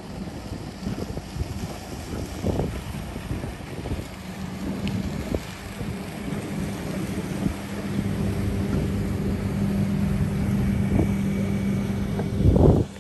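Boat outboard motor humming steadily, getting louder over the second half, with wind buffeting the microphone. A brief loud thump comes near the end.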